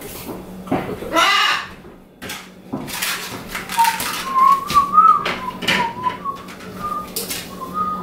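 Clicks and knocks of kitchen containers and utensils being handled at a counter, with someone whistling a wavering tune from about halfway through.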